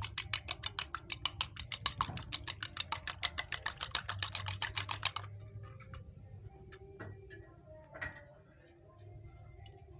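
A fork beating a raw egg in a small glass bowl: rapid, even clinks of metal on glass, about eight a second, stopping about five seconds in. After that only a few scattered light taps of the fork.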